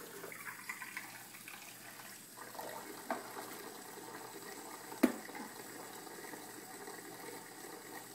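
Kitchen faucet running in a thin stream into a sink of soapy water, with small splashes and clinks as plastic cups are dipped and lifted. A single sharp knock about five seconds in is the loudest sound.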